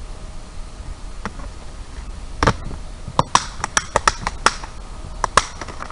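Scattered gunshots from a firing line: about a dozen sharp cracks in an irregular string. One comes about halfway through, a quick cluster follows, and two more come near the end, over a low steady background rumble.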